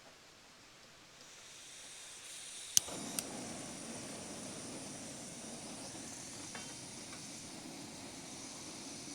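Gas camp stove being lit: gas hisses from the opened valve, two sharp igniter clicks come about three seconds in, and the burner catches and runs with a steady rushing noise.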